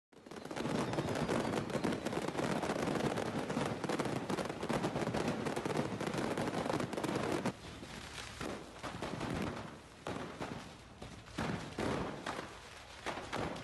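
Fireworks stock set off by a fire, bursting in a dense, continuous barrage of cracks and bangs. About seven and a half seconds in, the barrage drops abruptly to scattered single bangs.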